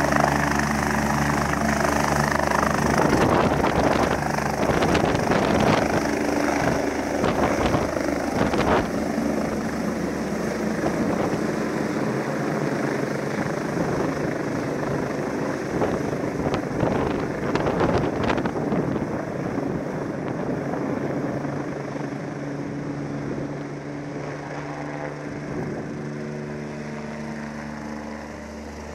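BK 117 rescue helicopter lifting off and climbing away, its rotor and twin turbines at full power. Rotor downwash gusts across the microphone as it lifts off, then the helicopter sound fades steadily over the last ten seconds as it gains height and distance.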